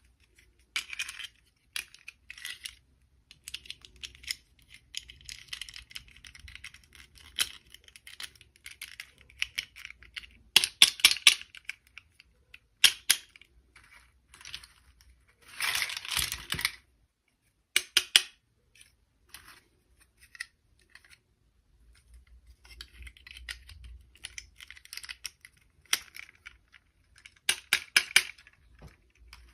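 Toys and packaging being handled: irregular clicks and taps with short rustles, including a quick run of clicks about eleven seconds in and again near the end, and a rustle of about a second midway.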